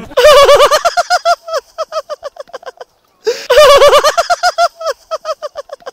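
High-pitched laughter in two bouts of rapid, repeated "hee-hee" pulses, each starting loud and trailing off into shorter, fainter pulses.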